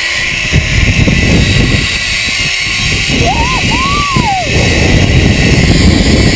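Wind buffeting the helmet microphone and a zipline trolley running along the cable on a fast zipline descent, loud and steady. About three seconds in, a high voice gives two rising-and-falling cries.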